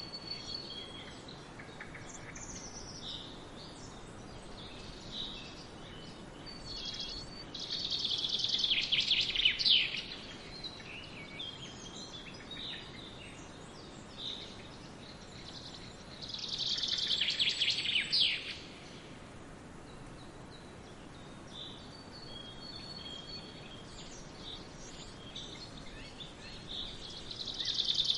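Wild birds singing and chirping. One bird repeats a loud song phrase about every nine seconds, three times, each ending in a fast trill. Shorter chirps from other birds come in between, over a faint steady background hiss.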